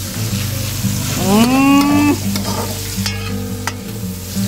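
Garlic, onion and chive sizzling in hot coconut oil in a pot while a long metal spoon stirs them. About a second in, a voice rises into a held note for about a second. Later the spoon clicks twice against the pot.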